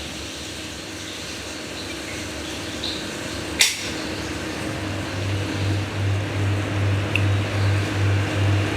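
Mixed soundscape ambience: a steady hiss, like running air or water, with a sharp click about three and a half seconds in. From about five seconds in, a low hum pulses roughly twice a second, and everything cuts off near the end.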